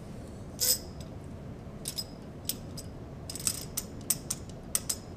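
Irregular sharp metallic clicks and clinks, about a dozen, of wrenches working the nuts of a coaxial cable connector as it is torqued tight. They come over a steady low hiss.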